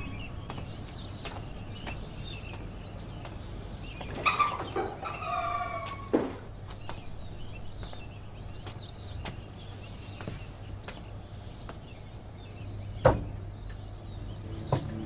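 Chickens clucking and small birds chirping in scattered short calls, with a longer call about four seconds in. A sharp knock comes near the end and is the loudest sound.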